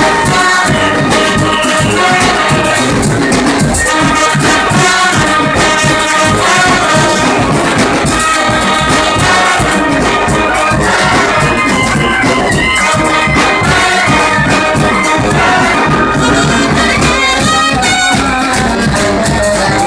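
Live brass band playing loudly: horns over drums and rattling percussion.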